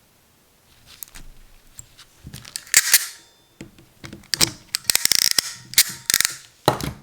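Hand-held ratcheting crimping tool clicking and snapping repeatedly as it is worked onto an RJ45 plug on CAT6 cable, with the loudest snaps about three seconds in and a dense run of them near the end.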